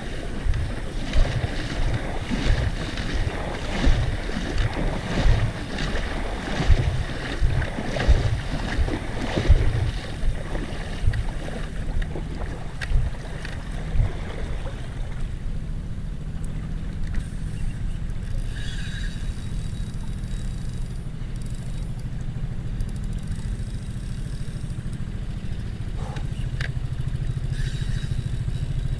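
A motorboat engine drones low and steady, growing louder near the end. Irregular thumps and knocks sound over it in the first half.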